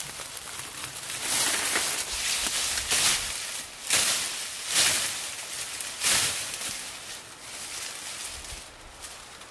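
Tall grass and leafy stems rustling in repeated swishing surges, about one a second, as a person pushes through the vegetation and pulls at the plants by hand; the rustling fades toward the end.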